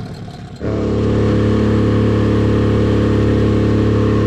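Honda four-stroke outboard motor on an inflatable boat running steadily at speed, with the hull rushing through the water. It comes in abruptly about half a second in and holds a steady pitch.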